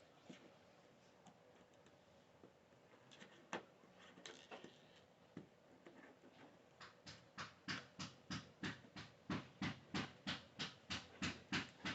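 Repeated knocking, about three knocks a second, from young children playing with Play-Doh; it starts about seven seconds in and grows louder, after a few scattered light clicks.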